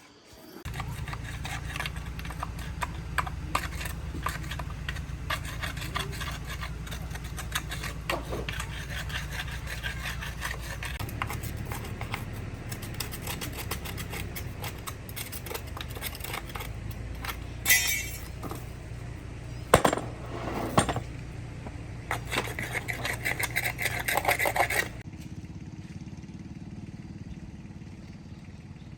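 A motor running steadily with scraping and clattering over it. The scraping grows louder in bursts and stops about 25 seconds in, leaving a fainter hum.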